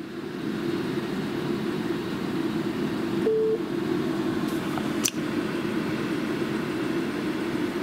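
Steady whirring of electronic equipment's cooling fan, with a short beep about three seconds in and a sharp click about five seconds in.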